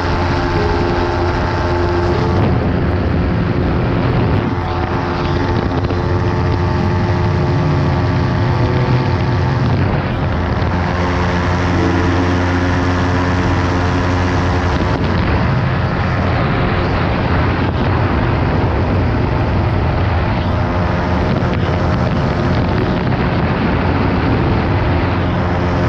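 Light aircraft's engine and propeller droning steadily in cruise, heard on board over a haze of rushing air. The engine note shifts slightly a few times.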